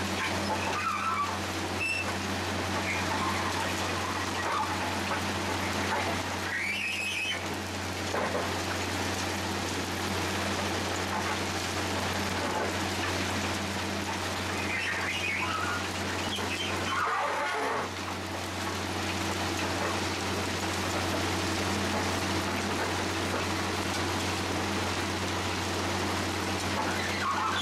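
Ballast regulator working along the track: its diesel engine runs with a steady low hum while its side plough scrapes and shoves the crushed-stone ballast in a continuous gravelly rattle. A few brief louder sounds stand out, about a quarter of the way in and again past the middle.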